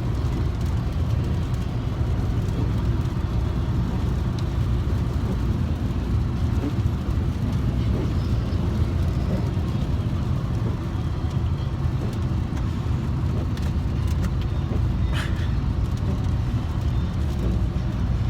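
Steady low rumble of a car driving at highway speed, heard from inside the cabin: engine and tyre noise with no change in pace.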